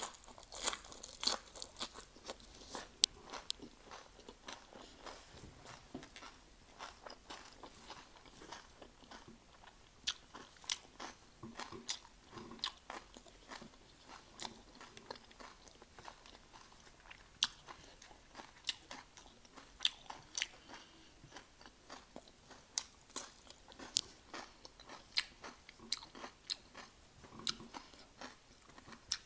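A person biting and chewing crisp bánh xèo rolled in fresh greens, along with raw vegetables, making irregular sharp crunches several times a second.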